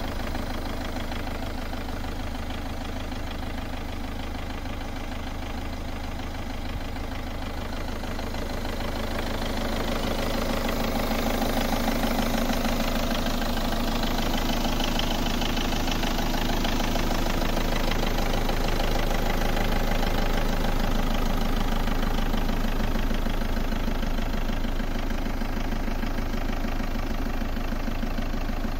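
Peugeot 206's 2.0 HDi 90 (PSA DW10) four-cylinder turbodiesel idling steadily, heard from the open engine bay; it gets a little louder from about ten seconds in.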